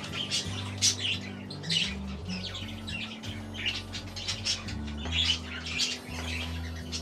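Pet parrots chirping and squawking in short calls, about one a second, over background music with steady low notes.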